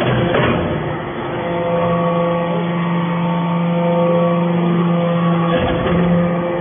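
Hydraulic metal-chip briquetting press running: a steady hum from its hydraulic pump and motor, shifting in tone as the press cycles, with a clank about half a second in and another near the end.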